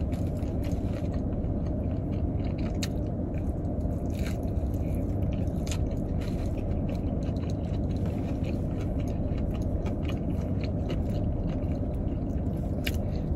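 Close-up chewing and biting of fried chicken and mashed potatoes, with scattered small clicks and scrapes of a plastic utensil in the mashed-potato cup, over a steady low hum.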